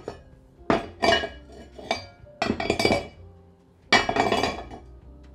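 Cast-iron lid of an enameled Staub cocotte clinking against the pot's rim as it is worked loose and lifted off: a run of sharp clinks with a short ringing tail, the loudest about four seconds in.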